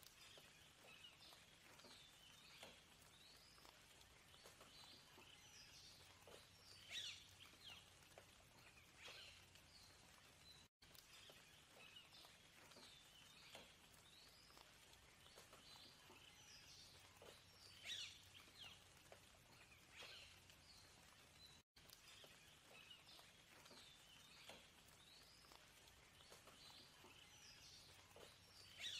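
Faint birdsong: many short chirps and trills from several birds over a soft steady hiss. The same stretch of about eleven seconds repeats as a loop, with a brief silent gap at each join.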